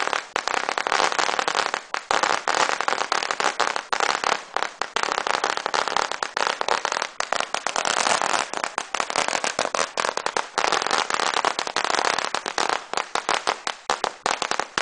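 A string of Chinese firecrackers going off, a continuous rapid crackle of sharp pops with no break.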